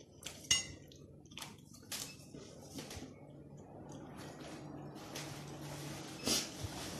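A person chewing a mouthful of food close to the microphone: a few sharp wet mouth clicks, then a soft hiss that slowly grows louder, with one louder smack near the end.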